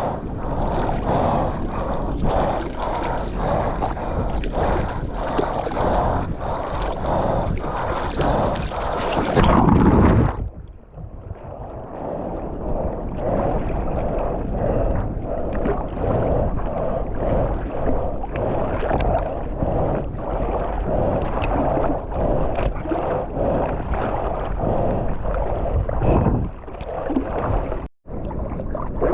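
Seawater splashing and sloshing right at a GoPro in the surf, with rhythmic slaps about twice a second. A loud rushing surge comes about ten seconds in and then drops away suddenly.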